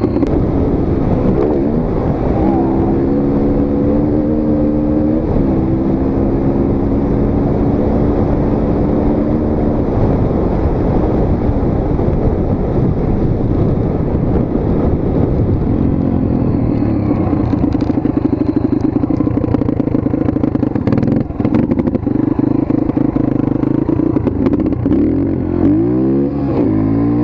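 Dirt bike engine running under way, holding a steady pitch for several seconds, then revving up and down near the end.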